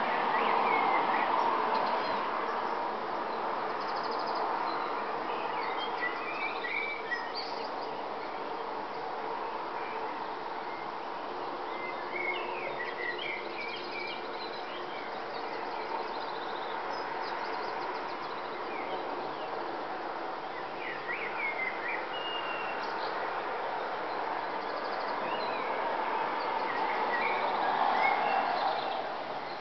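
Dawn chorus: several birds chirping and trilling in short scattered phrases over a steady rushing background noise. The background swells at the start and again near the end.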